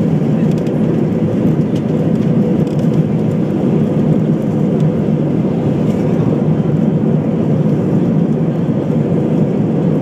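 Airbus A320 airliner's engines and rolling wheels heard from inside the cabin during the landing rollout: a loud, steady, deep roar.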